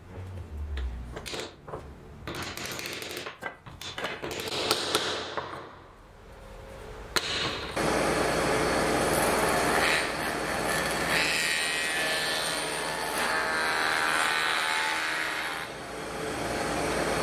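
Wooden joint pieces and a glue bottle handled on a workbench: small irregular knocks and clicks. After a sharp click about seven seconds in, a steady, louder noise sets in and carries on.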